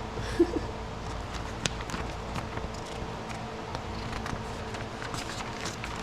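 Scattered light clicks and taps of objects being handled, over a steady low hum.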